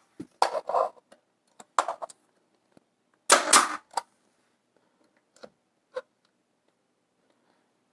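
Pneumatic brad nailer firing brads into wooden door trim: several sharp shots about a second apart, the loudest in the first four seconds, then two fainter clicks.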